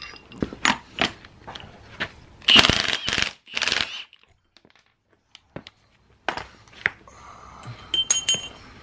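Metal tools clinking and knocking against steering parts, with sharp metallic clicks here and there. There are two louder, longer noisy bursts about two and a half and three and a half seconds in, a short quiet spell, then more knocks and clinks near the end.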